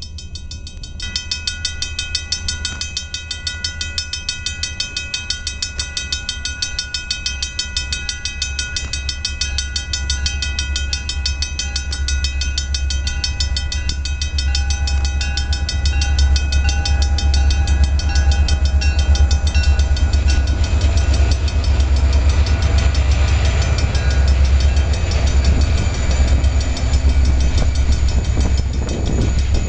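Level-crossing warning bell ringing rapidly and steadily. Two approaching diesel freight locomotives add a deep rumble that builds through the second half and is loudest as they pass over the crossing near the end.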